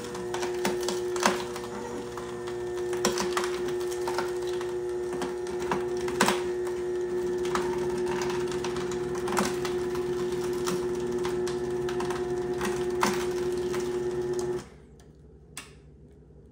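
AMZCHEF horizontal slow masticating juicer running on low speed, its motor humming steadily while the auger crushes a whole carrot with frequent sharp cracks and snaps. About fourteen and a half seconds in, the motor stops suddenly, stalled on the hard carrot: on low it doesn't have enough power.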